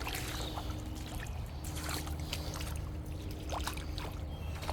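Shallow river water sloshing and trickling with scattered splashes, as of footsteps wading through it, over a steady low rumble.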